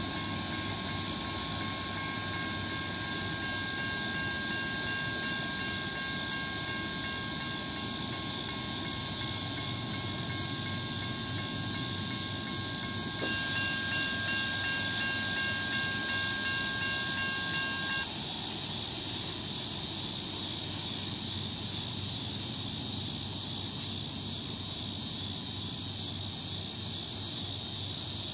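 Railroad grade-crossing warning bell ringing steadily over the low rumble of a distant train, until the bell stops about two-thirds of the way through. A steady high hiss grows louder about halfway.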